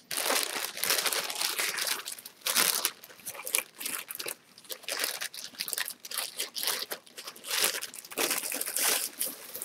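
Clear cellophane bag holding plastic model-kit sprues crinkling and crackling as it is handled, starting suddenly and going on in irregular fits with brief lulls.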